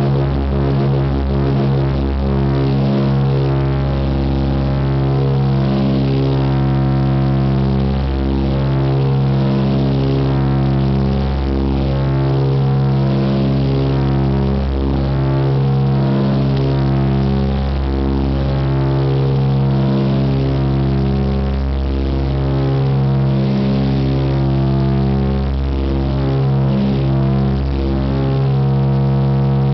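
The Super DC-3's twin radial piston engines and propellers droning steadily in flight, heard from inside the cockpit, with a slow, regular swelling and fading in the drone.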